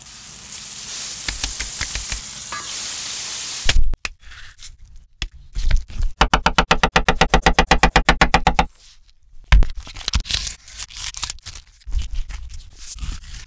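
A beef patty sizzling in a cast-iron skillet, ending in a loud knock. Later comes a fast, even run of knife strokes chopping on a wooden cutting board. Near the end a knife slices and scrapes through the plastic wrapping of a pack of hot dogs.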